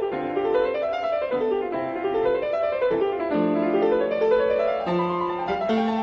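Background piano music: quick runs of notes rising and falling.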